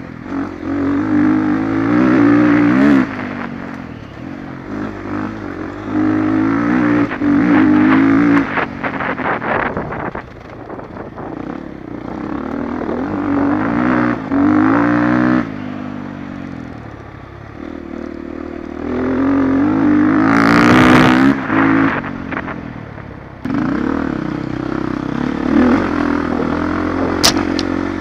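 Dirt bike engine being ridden on and off the throttle, its pitch repeatedly climbing and dropping back. A brief loud rushing noise comes about twenty seconds in, and a sharp click near the end.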